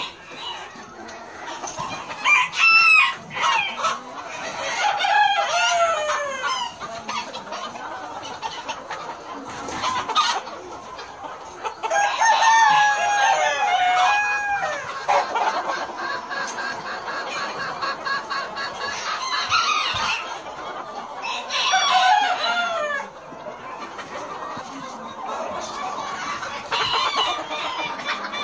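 A barn full of chickens: roosters crow again and again, several long crows in turn, over the steady clucking and chatter of the hens.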